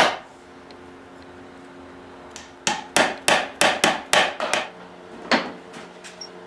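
A hammer tapping glued wooden dowel pins into their drilled holes in the edge of a table-top board: a quick run of about eight sharp taps starting a little over two and a half seconds in, then one more tap about a second later.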